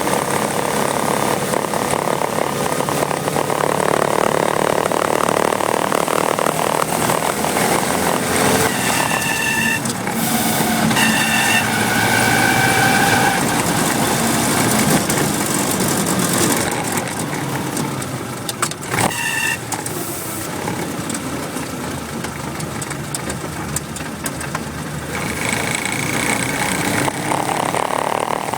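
Willys MB jeep's four-cylinder engine running, with a thin high squeal from the clutch group that comes and goes several times. The owner suspects a failing throwout bearing or the pilot bearing. There is a sharp click about two-thirds of the way through.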